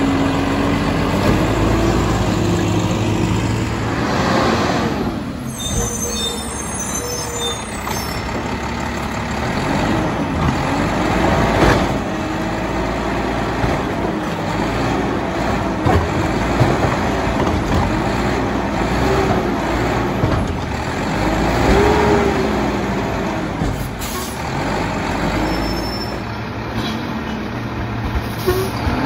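Mack LEU garbage truck's engine running and revving hard again and again, its pitch climbing and falling, while the McNeilus side-loader's lifting arm dumps carts. A few sudden louder noises cut in along the way.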